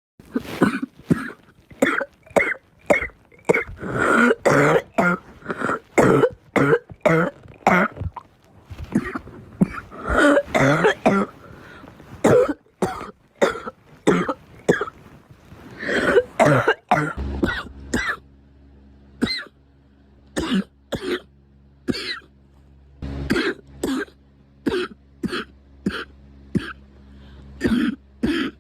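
A person coughing over and over: dozens of short, sharp coughs, about two a second, coming in bouts, with a few longer, rougher coughs among them.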